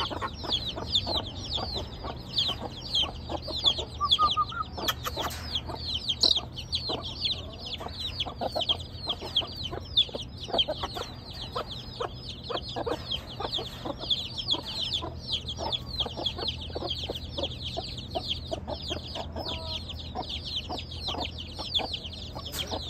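A brood of Aseel chicks peeping nonstop in short, high, falling notes, with lower clucking from the hens among them.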